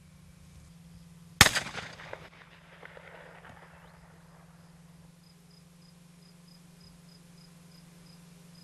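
A single shotgun shot about a second and a half in, its report echoing away over about a second. Later, faint evenly spaced high chirps, about four a second, come in over a low steady hum.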